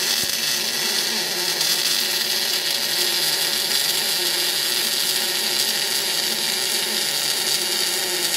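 MIG welding arc from an R-Tech MIG180 inverter welder with a spool gun feeding 0.8 mm wire into aluminium, burning steadily and evenly at a well-set voltage and wire speed. This is the sound of a clean weld.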